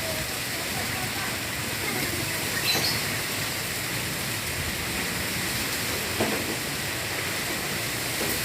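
Strong wind blowing in a steady rush, with two brief knocks partway through.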